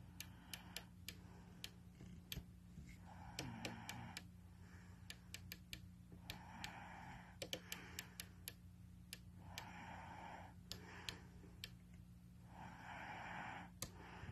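Faint clicks of a Cobra 29 LTD Classic CB radio's channel selector knob stepping through its detents at an irregular pace. The clicks come with short bursts of hiss, each about a second long, every couple of seconds, and a steady low hum.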